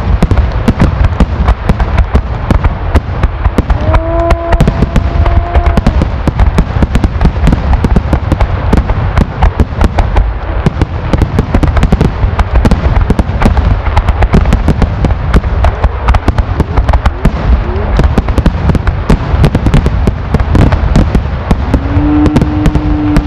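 Finale barrage of aerial fireworks: shells bursting in rapid, overlapping succession, a continuous dense crackle of booms and pops. A held tone sounds about four seconds in, and another near the end.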